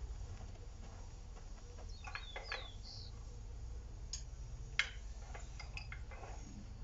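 Faint scattered metallic clicks and clinks as a square steel bar is set and clamped in a bench vise for cold twisting, with a few short high squeaks and a steady low rumble underneath.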